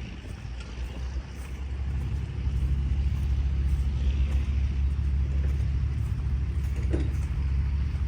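Low, steady engine rumble that grows louder about two seconds in and then holds.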